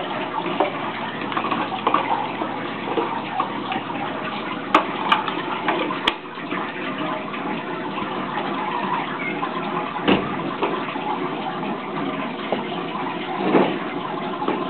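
Aquarium filter return water pouring from a spray bar into the tank, a steady splashing stream, with a few sharp clicks near the middle and a single thump about two-thirds of the way through.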